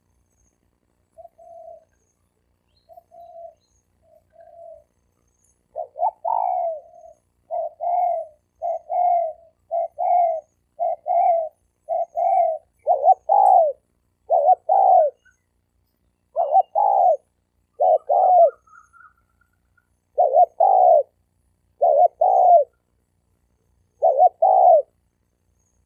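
Spotted doves cooing. A few soft coos come first, then about six seconds in a run of louder coos repeats roughly once a second, with short pauses.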